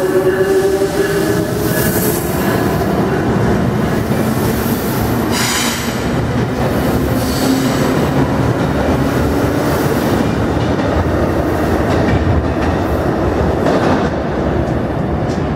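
Amtrak passenger train rolling past at close range: steady rumble of steel wheels on rail, with brief high wheel squeals a few times.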